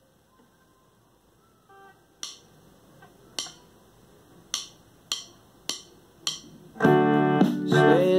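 Stratocaster-style electric guitar played through an amplifier, coming in loudly about seven seconds in with ringing notes and string bends. Before it come a few faint notes and a run of sharp clicks at a steady beat, like a count-in.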